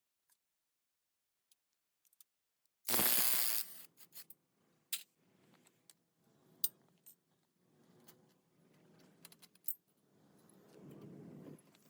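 Small metal parts clinking and being handled: scattered sharp clicks and taps with soft rustling between them. A loud rush of noise lasting about a second comes about three seconds in.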